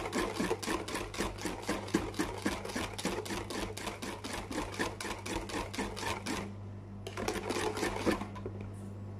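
A utensil whisking a mixture in a bowl: rapid, even clicking strokes, several a second, that break off briefly about six and a half seconds in and then resume for a few more strokes. A steady low hum runs underneath.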